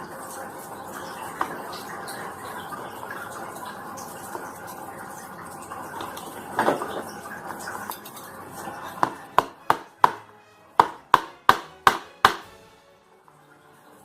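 Hammer tapping a skinny trim nail to punch a hole through a leather sewing-machine belt: about nine quick, sharp blows with a short ring, roughly three a second, coming after several seconds of indistinct handling noise.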